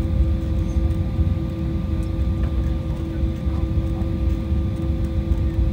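Steady cabin noise inside an Embraer 190 rolling slowly on the ground: a constant low rumble with a steady multi-tone hum from the idling CF34 turbofans and the cabin air system.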